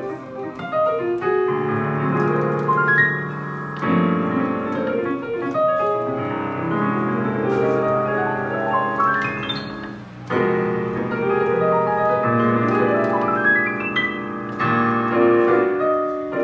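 Piano playing: sustained chords in the low and middle register with quick rising runs up the keyboard, a new chord struck every few seconds.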